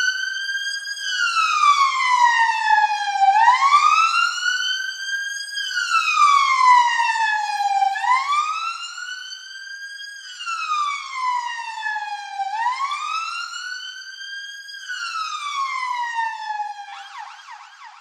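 Electronic police-style siren wailing, its pitch rising and falling slowly about every four and a half seconds, four times over, then switching to a fast warble near the end.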